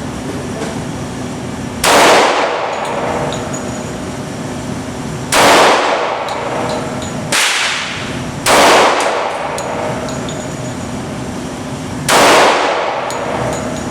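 Ported Glock 20 SF 10mm pistol fired five times, single shots spaced a few seconds apart, each report ringing off briefly; the fourth shot is weaker than the rest.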